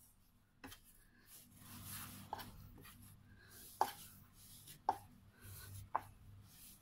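Bun dough being kneaded by hand on a wooden board: soft pushing and rubbing, with five sharp wooden knocks about a second apart.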